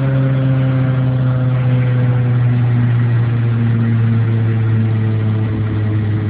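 Engine of a Mk2 Volkswagen fitted with a supercharged G60 four-cylinder, running steadily at a low speed, its pitch easing slightly downward.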